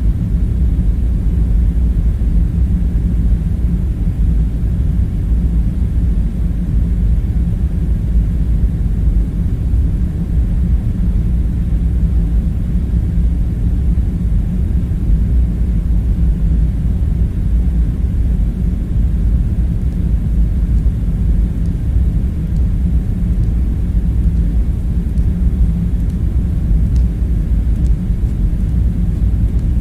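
Steady low rumbling drone, the bunker's background hum, unchanging throughout, with a couple of faint ticks near the end.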